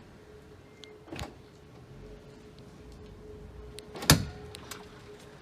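A faint steady hum with two knocks, a light one about a second in and a louder, sharp one about four seconds in.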